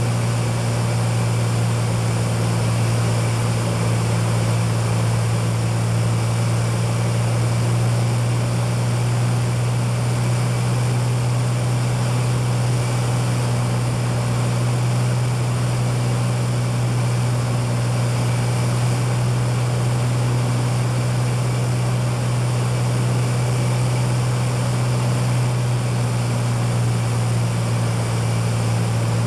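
Cessna 206 piston engine and propeller droning steadily, heard from inside the cabin: a loud, even low hum that holds the same pitch throughout.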